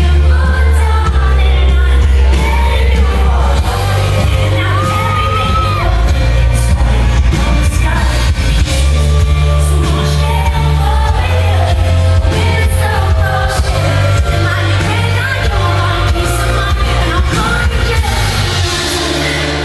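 Live pop concert: a woman singing a slow ballad over a band with a heavy, deep bass, in the reverberant sound of a large hall.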